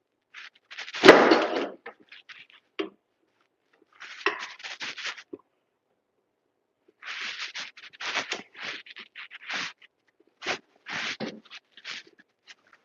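Bursts of scraping and knocking from hand work, with a heavy thump about a second in and quick runs of scraping strokes later on, separated by short silences.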